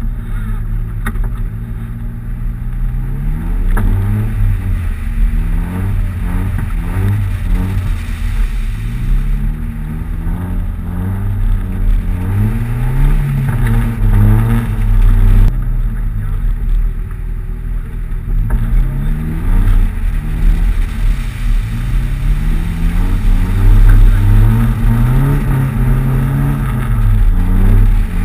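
Nissan 200SX engine running under load, revving up and easing off again and again, its pitch rising and falling in repeated swells as the car is driven on snow.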